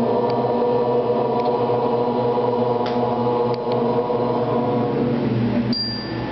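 A group chanting a long, held "Om" in unison, one steady drawn-out tone that breaks off sharply near the end, with a short high ding at the break.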